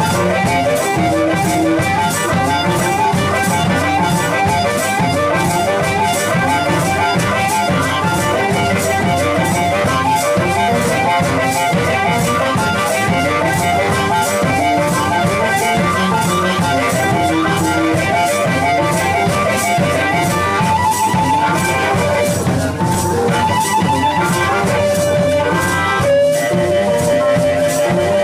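Blues band playing live, with no singing: a harmonica played into a handheld microphone over hollow-body electric guitar and drums. The harmonica moves through quick repeated phrases and holds one long note near the end.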